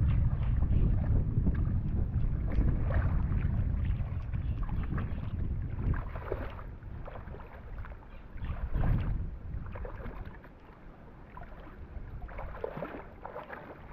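Wind rumbling on the microphone for the first few seconds, then easing off, with irregular splashing and sloshing of water throughout.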